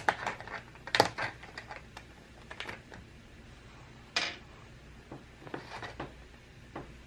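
Plastic spout pouch of heavy cream crinkling and clicking as it is handled. There is a quick run of sharp crinkles in the first two seconds, loudest about a second in. A louder crackle comes about four seconds in, and a few lighter clicks follow near the end.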